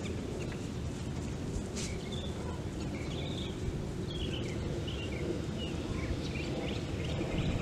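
Steady low outdoor background noise, with short bird chirps scattered through the middle.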